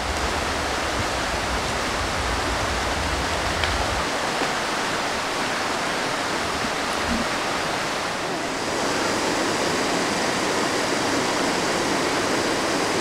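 Steady rush of a mountain stream pouring over rocks and small cascades, a little louder from about nine seconds in. A low rumble, such as wind on the microphone, sits under it for the first few seconds.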